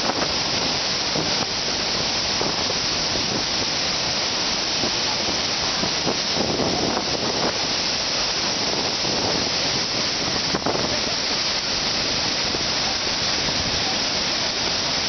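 Steady rush of a large waterfall's falling water, an even unbroken hiss.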